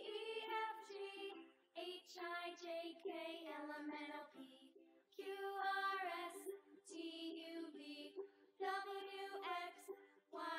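Background music: a gentle song sung by a high voice, in phrases broken by short pauses.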